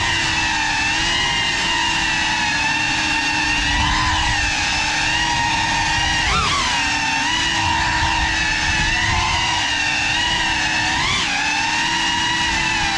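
GEPRC FPV quadcopter's brushless motors and propellers whining steadily in flight, the pitch wavering slightly as the throttle changes, with brief rising surges about six and eleven seconds in.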